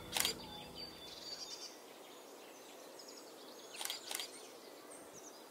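Quiet outdoor ambience with faint bird chirps, as soft background music fades out in the first second and a half. A short sharp click comes about a quarter second in, and a brief cluster of sharp sounds about four seconds in.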